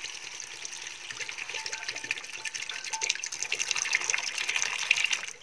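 A thin stream of water poured from a steel cup into a stainless steel kadai, splashing onto the brinjals and spices in the pan. The pouring grows a little louder and stops abruptly near the end.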